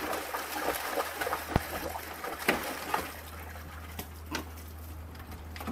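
Water splashing and sloshing in a plastic kiddie pool as a dog stamps and paddles through it, with several sharper splashes at irregular moments.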